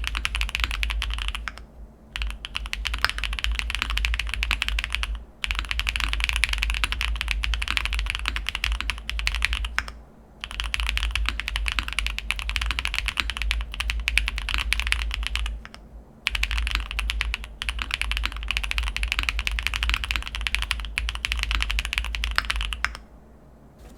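Fast typing on an Owlab Vento80 custom mechanical keyboard with stock, unlubricated Kailh BCP switches on a POM plate, full foam and GMK keycaps: dense runs of keystrokes broken by a few short pauses, stopping about a second before the end.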